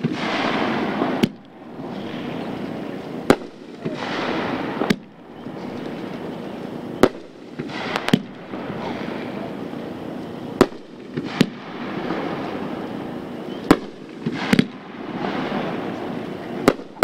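A Pyro Demon 'Home of the Brave' 3-inch consumer (1.4G) super finale cake firing shot after shot: sharp bangs every one to two seconds, with a hissing rush of sparks between them.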